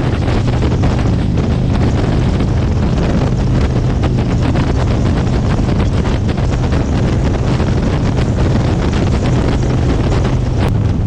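Harley-Davidson V-twin motorcycle cruising at a steady speed, its low exhaust drone under heavy wind rush on the action camera's microphone.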